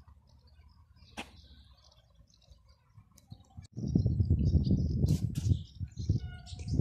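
Small birds chirping in short high calls, then about four seconds in a sudden ragged low rumble of wind buffeting the microphone that swells and dips and becomes the loudest sound.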